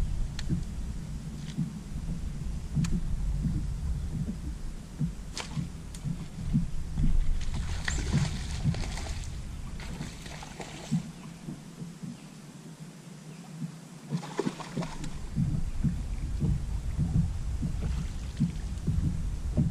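Choppy low rumble of water and wind against a bass boat's hull and deck, with a few brief splashy hisses about eight and fourteen seconds in.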